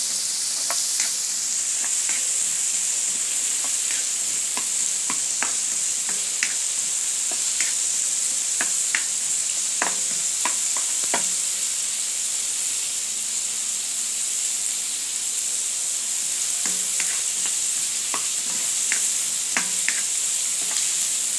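Hot oil sizzling steadily under whole galunggong (round scad) frying in a pan and onion, garlic and tomato sautéing in a wok, with a spatula ticking and scraping against the wok at irregular moments, more often in the first half and again near the end.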